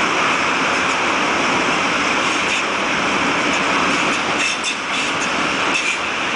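Freight train of high-sided open wagons rolling past, a steady rumble and hiss of steel wheels on the rails, with a few short sharp clicks about two-thirds of the way through.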